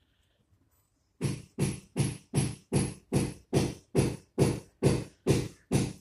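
An animal's repeated call: a very even series of loud, low notes, about two and a half a second, starting about a second in.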